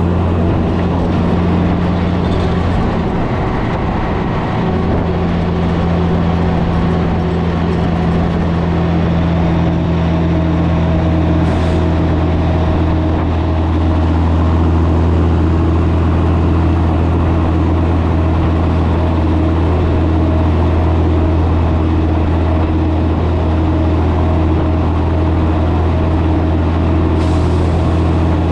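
1984 Peterbilt 362 cabover truck running steadily at cruise, a constant low engine drone heard from inside the cab. Two brief high hisses cut in, about a third of the way in and near the end.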